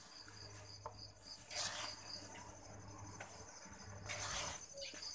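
A cricket chirping steadily with evenly spaced high chirps. Twice, about a second and a half in and again near the end, comes a short rustle of crumbly flour dough being mixed by hand in a plastic bowl.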